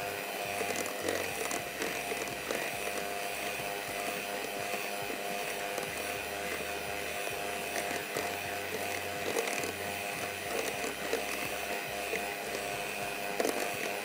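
Thick chocolate-and-sugar cake mixture being stirred in a pan, with light irregular scraping and clinks of the utensil, over a steady hum.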